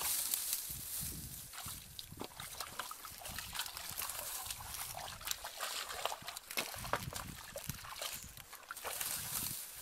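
Bare feet wading and squelching through shallow muddy water, with splashing and sloshing and scattered crackles of dry straw underfoot.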